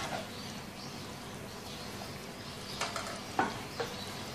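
Onion-tomato gravy with yogurt sizzling softly in oil in a frying pan, with a few faint pops about three seconds in.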